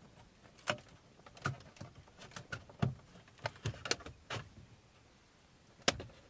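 Plastic dashboard trim around an Audi A4's screen being pried loose with a plastic trim tool and by hand. It gives a string of irregular clicks and snaps as the trim's clips let go, the sharpest near the start, about three seconds in and near the end.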